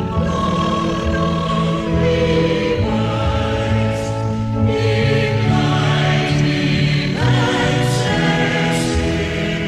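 Music: voices singing like a choir in held harmony over sustained chords, with a few sharp hits about four and eight seconds in.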